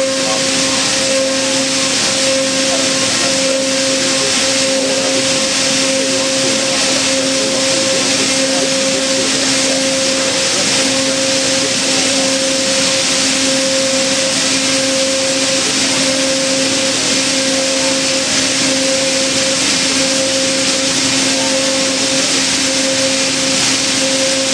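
C.R. Onsrud 96C18 CNC router's spindle running at a steady pitch while a small end mill cuts a solid-surface (Corian) ball, with a steady hiss from the cut.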